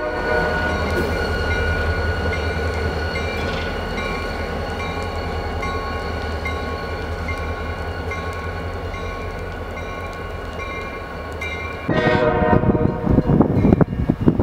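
Diesel freight locomotive of the Vermont Rail System slurry train pulling away, its engine a steady low hum with its bell ringing evenly. About twelve seconds in the sound gives way abruptly to louder, rougher, uneven noise.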